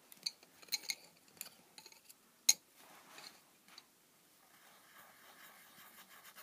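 Small plastic clicks and clinks as coloured pens are handled, with one sharp click about two and a half seconds in, then a pen tip scratching rapidly back and forth on card as it colours in.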